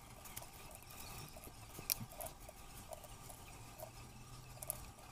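Soft, irregular taps and clicks of raw potato slices being laid one by one into a glass baking dish, with one sharper click about two seconds in.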